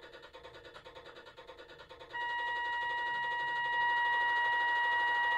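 Electronic sound module of an RC scale model boat playing through its small speaker. It starts with a faint, fast, even engine-chugging sample. About two seconds in, a loud, steady, high-pitched electronic tone starts suddenly and holds.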